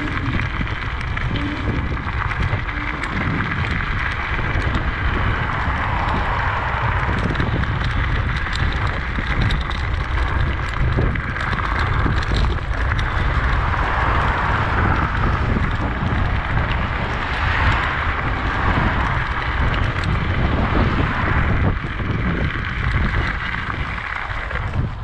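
Wind buffeting the microphone: a continuous low rumble under a rushing noise that swells and eases every few seconds.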